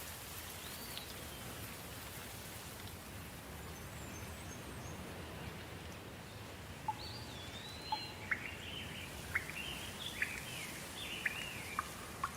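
Steady light rain falling, with a songbird calling over it: one whistled note about a second in, then a quick run of chirps and sharp whistled notes from about seven seconds in.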